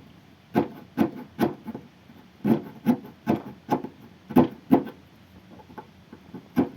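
A round file rasping back and forth inside a hole in a piece of cane, enlarging the mouth hole of a whistle. The short scraping strokes come two or three a second, in bursts with brief pauses, and turn lighter near the end.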